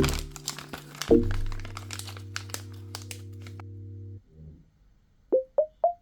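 Packaging crinkling as a blind pack is handled, over background electronic music. The music holds a sustained chord that cuts off about four seconds in, and three short plucked notes follow near the end.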